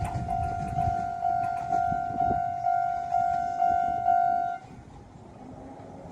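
Railway level crossing warning bell ringing at about two strokes a second, each stroke fading, over the low rumble of a passing train that dies away in the first couple of seconds. The bell cuts off about four and a half seconds in, once the train has cleared the crossing.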